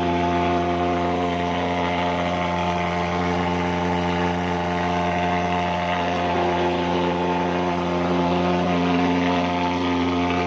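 Portable pulse-jet thermal fogging machine running continuously, a steady loud buzzing drone, as it pumps out insecticide fog against mosquitoes.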